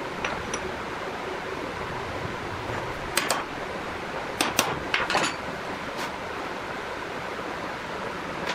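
Steel gears clinking against each other and a metal plate as they are picked up and set down: a handful of sharp metallic clicks in the middle few seconds and one more near the end, over a steady hiss.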